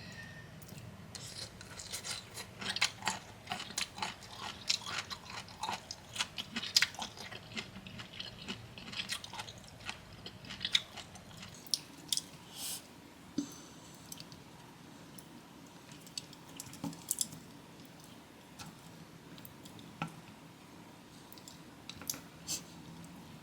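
Close-miked chewing of crunchy bamboo shoot papaya salad, with many crisp crunches. The crunches come thick and fast for roughly the first ten seconds, then grow sparser.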